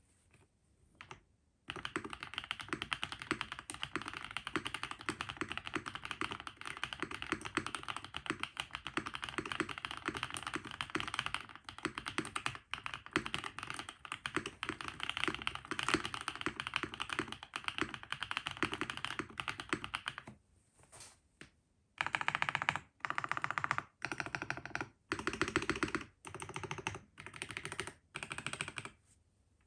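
Typing on a Transition Lite TKL custom mechanical keyboard fitted with Rise Neon linear switches: fast continuous keystrokes, then after a short pause several brief bursts of typing with gaps between them.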